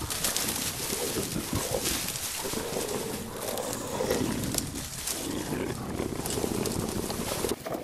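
Low animal growling over a constant crunching rustle of dry leaves, as of a creature moving fast through the woods. The sound cuts off abruptly near the end.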